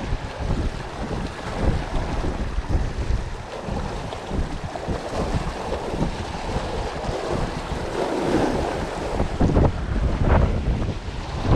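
Strong gusting wind buffeting the microphone with a heavy, uneven rumble, over waves from big wind-driven swells washing against the reservoir shore. The gusts surge harder near the end.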